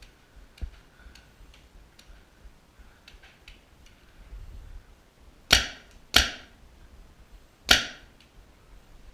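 Mag-fed paintball marker firing three sharp pops: two close together about five and a half seconds in, a third about a second and a half later. Faint scattered clicks of more distant shots sound in between.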